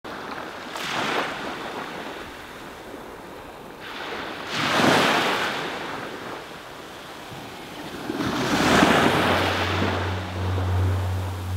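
Small waves breaking and washing up a sandy beach, in three surges about four seconds apart.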